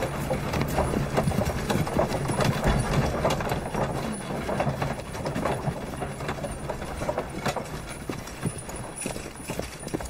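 Horses' hooves clip-clopping in a procession that draws a carriage, a busy, irregular clatter of many hoof strikes that eases a little in the second half.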